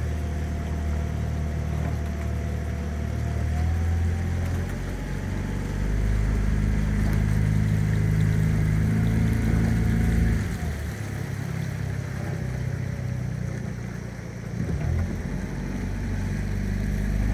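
A small boat's outboard motor running steadily. Its engine note shifts about four seconds in and again around ten seconds, and dips briefly near fourteen seconds as the throttle changes.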